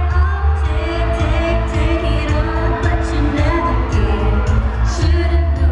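A woman singing a pop song live over an amplified backing track with heavy bass, heard through a venue's loudspeakers.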